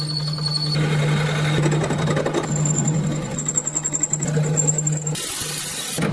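Metalworking machine running in a workshop: a steady hum with a fast mechanical rattle, broken about five seconds in by a brief harsh hiss.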